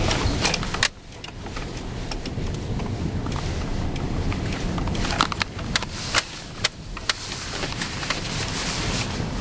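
2001 Chevy S10 pickup heard from inside the cab, driving over rutted snow: a steady engine and tyre rumble with frequent knocks and rattles as the truck jolts over the ruts. The rumble drops suddenly about a second in, then builds back up.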